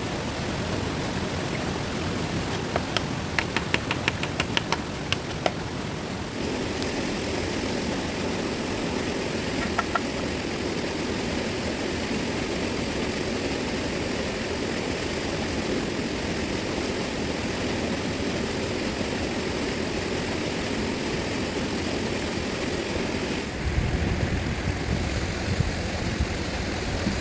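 Steady rush of a fast-flowing river. A quick run of sharp taps or knocks, about five a second, comes a few seconds in, and the water takes on a deeper rumble near the end.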